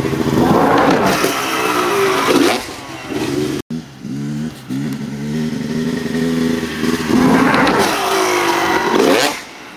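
Dirt bike engine revving hard as the bike jumps close overhead, loud twice with the pitch sliding as it passes; a short break cuts the sound a little over a third of the way in.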